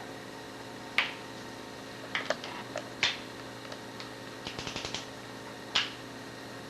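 A wrench ratcheting and clicking on the Rotax 787's cylinder head bolts as they are torqued to 17 ft-lb: three sharp single clicks about two seconds apart, with a quick run of small ratchet clicks between the second and third. A steady low hum runs underneath.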